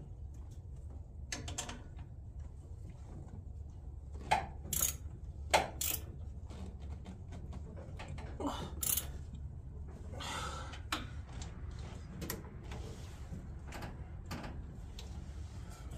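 Scattered sharp clicks and clanks of hand tools and metal parts being handled while a car part is bolted back on, with a brief scrape about ten seconds in, over a steady low hum.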